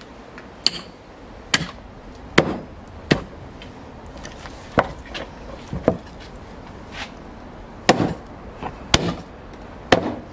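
Cleaver chopping lamb on a cutting board: about nine heavy strokes at uneven intervals.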